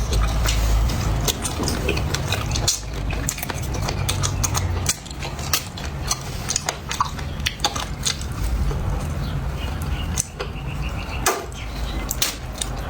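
Close-up eating of duck feet: chewing with many small, sharp clicks and crunches.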